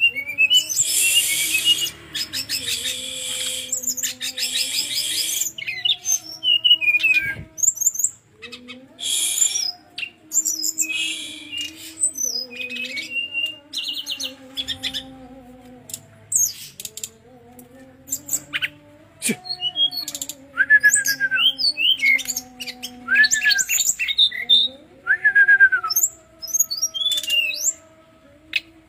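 Brown-chested jungle flycatcher singing: rapid buzzy trills, sharp high chirps and short down-slurred whistles, the trills densest in the first few seconds. Under the song runs a low wavering hum.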